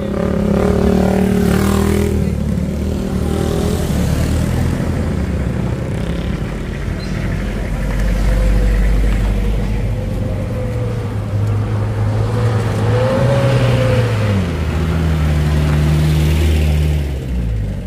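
A vehicle engine running hard under load, its pitch steady for a long stretch, shifting about 14 seconds in, then dropping off near the end.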